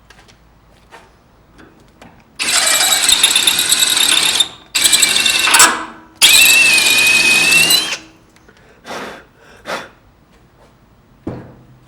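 Power drill running in three bursts of about one to two seconds each, its bit boring out a small brass valve.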